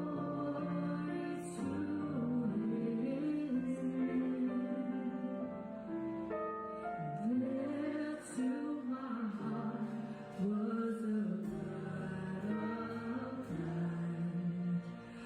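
Worship band playing a slow song, a voice singing a wavering melody over held chords.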